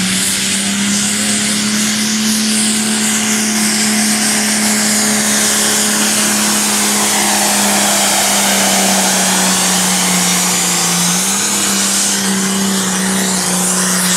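International hot farm class pulling tractor's engine running at full throttle under load as it drags the pull sled, holding a steady high-revving pitch that dips briefly about eleven seconds in. It is loudest as the tractor passes close around the middle.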